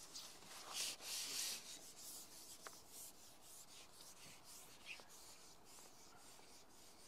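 Faint splashing of a fishing pole tip tapped on the water surface to attract a fish, with a brief louder splash about a second in, then soft rubbing and scraping sounds.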